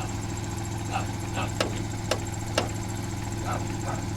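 Steady hum of a running air compressor, with three sharp clicks about half a second apart in the middle and a dog barking a few times in the background.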